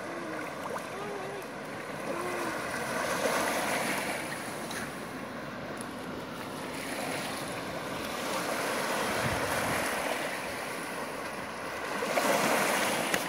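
Surf washing up a sandy beach in swells, each wave building and fading, with the loudest wash near the end.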